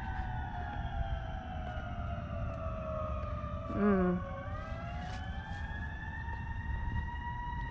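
A siren wailing: its pitch falls slowly for about three and a half seconds, then rises slowly back up again.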